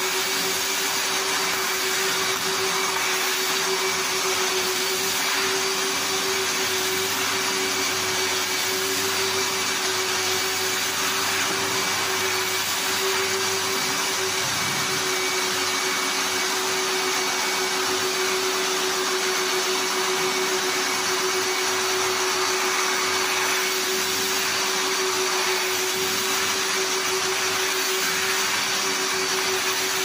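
Three-motor industrial wet/dry vacuum cleaner running steadily: an even rush of air with a constant hum and a fainter high whine.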